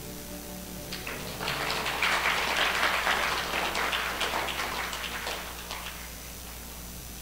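Audience clapping, starting about a second in, swelling, then thinning out and stopping at about six seconds.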